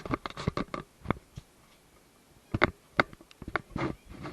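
Light clicks and taps of something being handled: a cluster at the start, one about a second in, then several more from about two and a half seconds.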